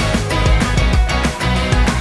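Upbeat rock background music with guitar and a steady driving beat.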